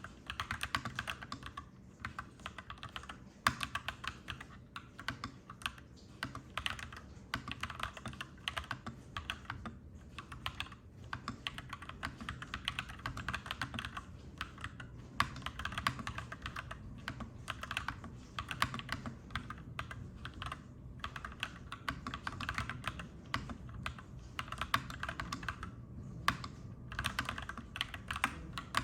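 Mechanical keyboard being typed on, clacky keystrokes coming fast in runs with short pauses between them, over a steady low background hum.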